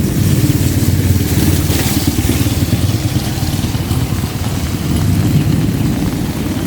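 Rain falling, with a loud low rumble underneath that lasts the whole time; the hiss of the rain grows briefly about two seconds in.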